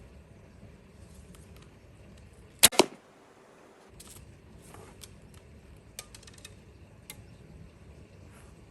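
A 30-pound laminated horsebow is shot once: a sharp crack as the string is released, then a second crack a split second later. A few faint clicks follow.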